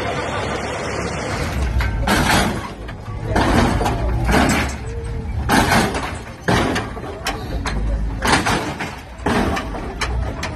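Hydraulic lowrider cars hopping: a series of irregular sudden bursts and heavy thumps as the cars are bounced up and slam back down. Before that, for about the first second and a half, a steady street noise.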